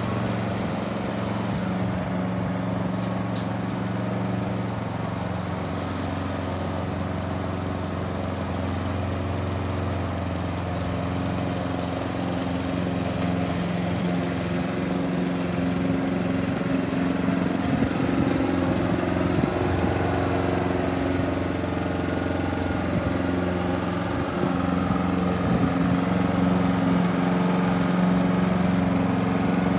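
Petrol walk-behind rotary lawn mower running at a steady speed while being pushed across grass; the engine holds one constant pitch and grows somewhat louder in the second half as the mower comes closer.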